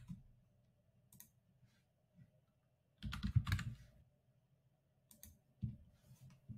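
Computer keyboard typing: a quick run of keystrokes about three seconds in, with a few isolated clicks around it.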